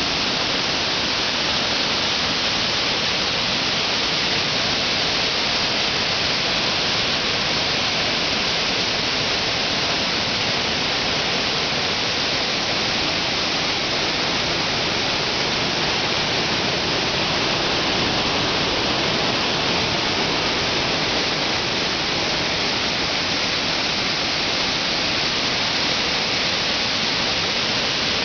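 Mesa Falls, a large waterfall on the Henrys Fork, pouring into the river below: a steady, unbroken rush of falling and churning water.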